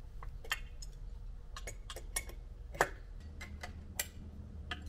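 About a dozen irregular sharp metal clicks and light taps from hand tools and parts as the lower unit (gearcase) of a two-stroke outboard is unbolted and lowered off the motor.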